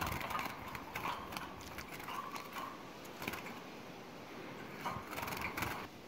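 Irregular light clicks and knocks, louder about three seconds in and again near the end: handling noise and footsteps while working around wire birdcages.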